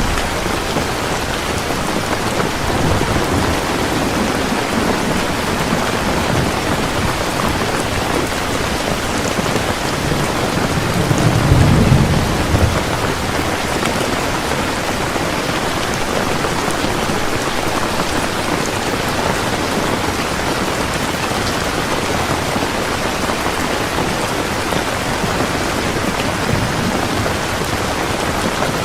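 Heavy rain falling steadily, with a low rumble of thunder swelling and fading about ten to thirteen seconds in.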